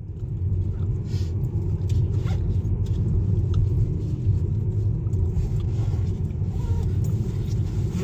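Car cabin noise while driving: the engine and road make a steady low rumble that grows louder in the first second and then holds.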